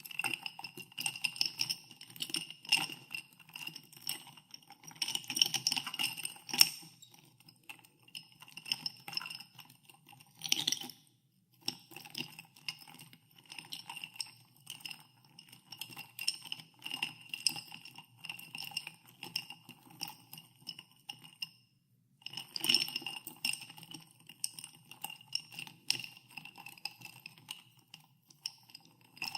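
Ice cubes being stirred in a glass of soda water, clinking continuously against the glass, which rings with a clear pitch. The clinking pauses briefly twice, about a third of the way in and again past the middle.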